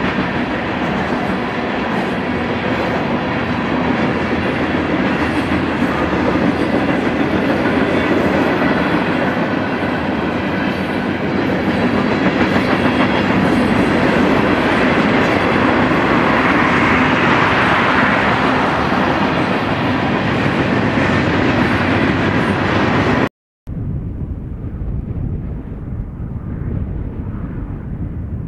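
Freight cars of a passing manifest train (tank cars, covered hoppers and boxcars) rolling by on the rails, a steady clatter and rumble of wheels on track. About 23 seconds in it cuts off abruptly, and after a brief gap a quieter, duller rumble follows.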